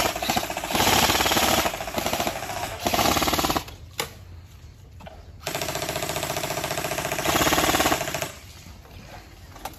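Airsoft electric gun firing full-auto bursts, a fast rattle of shots. Several short bursts in the first few seconds, a pause, then one long burst of nearly three seconds that stops about two-thirds of the way through.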